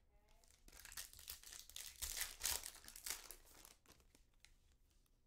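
Foil wrapper of a trading-card pack being torn open and crinkled: a run of crackling and tearing that starts about a second in and lasts about three seconds.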